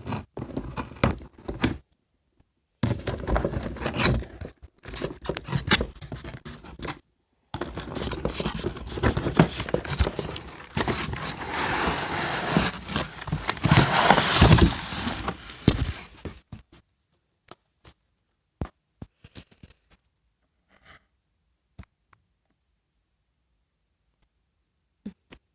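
Toy packaging being cut and torn open: dense scraping and tearing of cardboard and plastic, broken by two brief pauses, that stops after about sixteen seconds, leaving only a few faint clicks.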